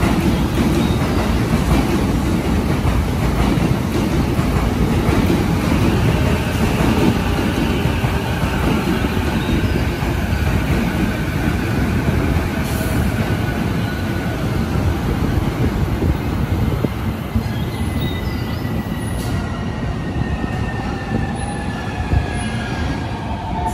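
Keihin-Tohoku line E233-1000 series commuter train running past on the adjacent platform track: a steady rumble of wheels on rail with a thin wheel squeal over the second half, easing off as the last cars go by.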